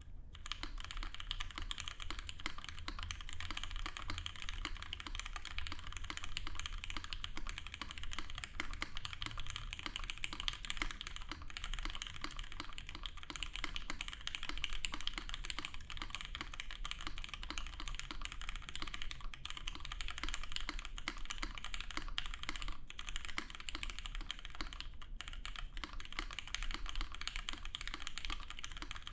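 Fast, continuous typing on a Mekanisk Tind 60% mechanical keyboard with Cherry MX Hyperglide Black linear switches, a brass plate and GMK keycaps: a dense, steady stream of key clacks.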